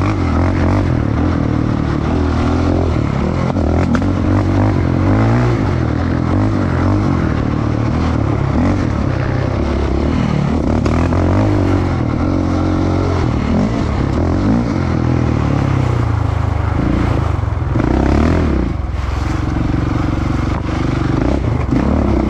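Sport quad (ATV) engine running hard over a dirt track, its pitch rising and falling again and again as the rider works the throttle, heard from the rider's seat.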